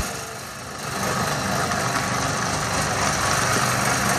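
A steady mechanical hum and whir with no speech. It is a little quieter for about the first second, then holds level.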